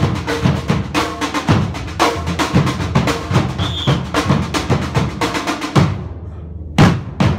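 Fast drumming with tennis balls: a dense run of hits, several a second. It breaks off about six seconds in and starts again near the end.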